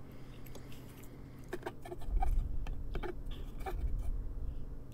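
Faint clinks and taps of a metal fork against a dish of spaghetti, a handful of short clicks over a low steady hum.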